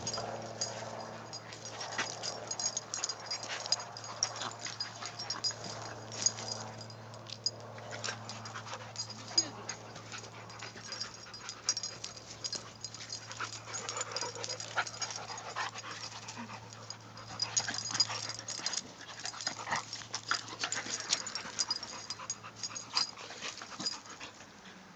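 A Norwegian Elkhound/Keeshond puppy and a boxer play-wrestling: irregular scuffling and mouthing noises with short dog vocal sounds and breathing.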